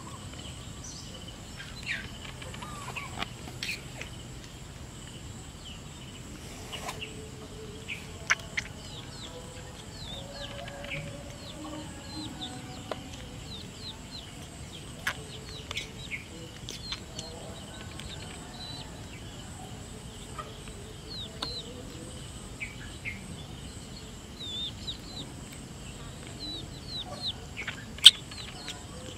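Birds and chickens calling: many short high chirps and clucks scattered throughout, over a faint steady high-pitched drone. A few sharp clicks come through, the loudest near the end.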